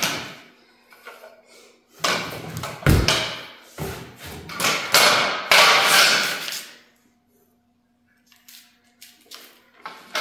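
Metal frame legs and rails of a CNC plasma table knocking and clattering against each other and the floor as they are handled and laid out, with one heavy thud about three seconds in. It goes quiet near the end.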